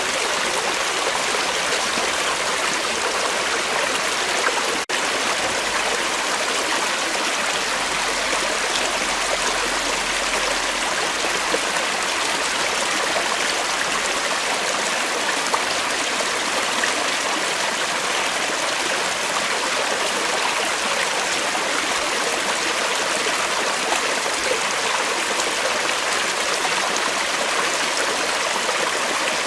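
Creek water flowing steadily over rocks, an even rushing and trickling with a brief dropout about five seconds in.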